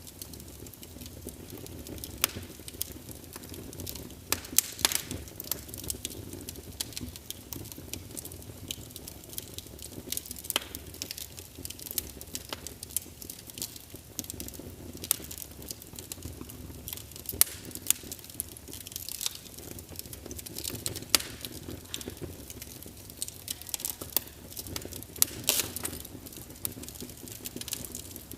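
Birchwood log fire crackling, with irregular sharp pops and snaps over a steady low rush of the burning logs.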